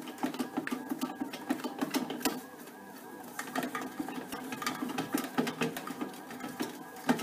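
Panasonic SD-2500 bread maker kneading dough: its motor drives the blade with a steady hum, and the dough ball knocks irregularly against the sides of the pan. The kneading goes quieter for about a second, roughly two and a half seconds in, then picks up again.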